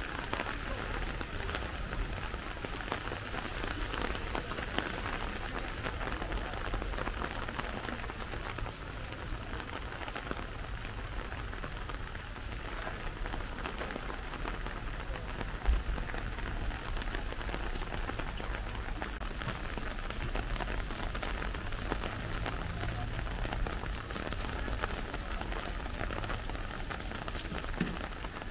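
Steady rain falling on hard surfaces, with a low rumble underneath and one short thump about halfway through.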